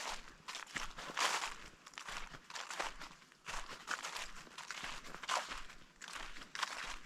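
Footsteps of a person walking on the forest floor at a steady pace, a little under two steps a second.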